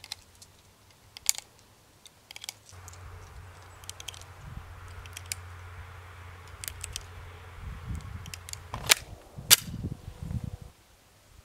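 9mm cartridges being pressed one by one into a SIG Sauer P320 M17 pistol magazine: a series of small metallic clicks. Near the end, two louder sharp clacks about half a second apart as the loaded pistol is handled, over a faint low rumble.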